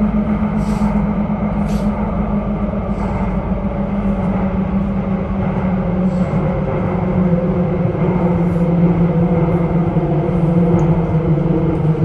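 Metro train running through a tunnel: a steady motor hum over a low rumble. The hum drops slightly in pitch in the second half as the train slows toward a station, with a few faint ticks early on.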